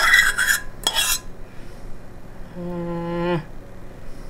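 A metal spoon clinks against the saucepan and ceramic ramekins twice, right at the start and about a second in, each clink ringing briefly. About three seconds in a person gives a short hummed "mm".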